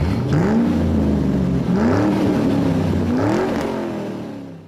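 An engine revved three times, each rev rising and then falling in pitch, fading out near the end.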